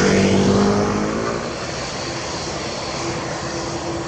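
ATR 72-600 twin-turboprop airliner rolling away on its takeoff run at full power. The propeller drone drops in pitch and fades over the first second or two, leaving a steady hum.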